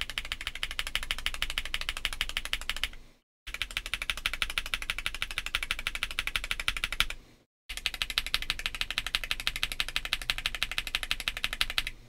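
Fast typing on a Monsgeek M1W mechanical keyboard modded with Tempest tape, plate and PCB foam and polyfill, fitted with Akko Piano V3 Pro linear switches and PBT keycaps. Keystrokes come in a dense, rapid stream, broken by two short silent gaps about three and seven seconds in.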